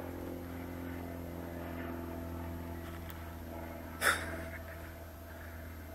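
A steady, low mechanical hum with several held tones, engine-like, and one brief sharp noise about four seconds in.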